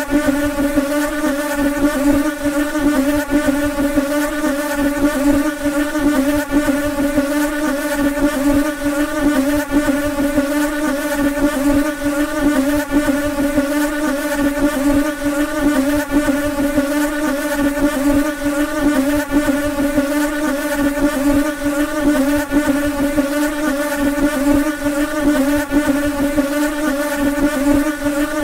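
Houseflies buzzing in flight: a steady, loud wingbeat drone with a slightly wavering pitch that never stops.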